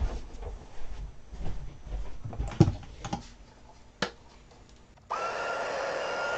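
A few scattered knocks and clicks of things being handled, then about five seconds in a craft heat tool switches on and runs with a steady whir and a high, even whine, drying the wet watercolor panel.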